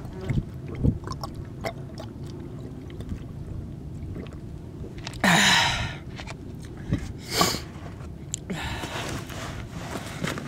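A person drinking from a water bottle: small gulping and swallowing clicks, a loud breathy burst about five seconds in and a shorter one about two seconds later, over a steady low rumble.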